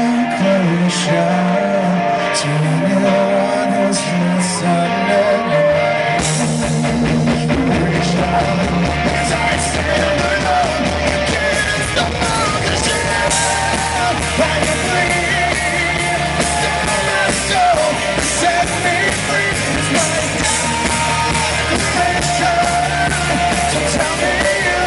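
Live rock band with a male lead singer and electric guitar. The first few seconds are sparse, and the drums and bass come in fully about six seconds in.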